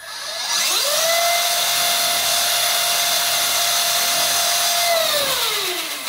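Electric motor and gear drivetrain of a LaTrax Teton RC truck driving its wheels in the air at full throttle, about 3700 RPM. The whine rises quickly to a steady high pitch, holds for about four seconds, then falls away as the wheels spin down near the end.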